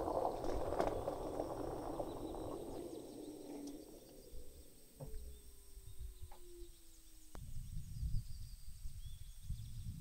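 Jeep Wrangler rolling slowly over gravel as it comes to a stop, the tyre crunch fading over the first few seconds. A faint falling whine follows and cuts off abruptly about seven seconds in, consistent with the engine being switched off. A low rumble and a few light knocks come near the end.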